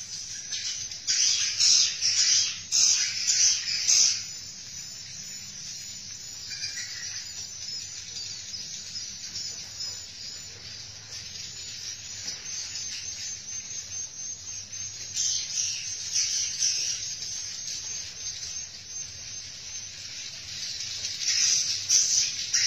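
Swiftlets giving their mating calls, a dense, high chattering twitter, loudest in the first few seconds and again near the end.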